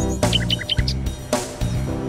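Background music, with a few short bird chirps over it about half a second in.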